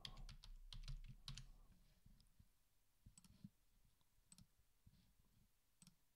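Faint computer keyboard typing for about two seconds, then a few isolated clicks spread through the rest.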